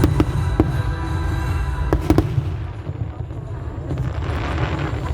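Fireworks going off: a handful of sharp bangs over a deep rumble in the first two seconds or so, then the bursts thin out into a quieter crackle and hiss.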